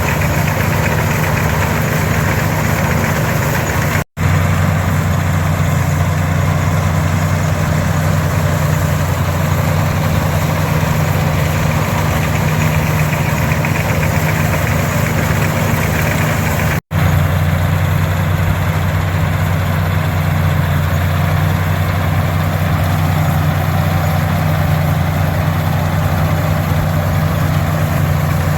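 International 460 tractor's six-cylinder 282 diesel engine running steadily under load while pulling and powering a pull-type combine in the field. The sound drops out very briefly twice, about 4 seconds in and about 17 seconds in.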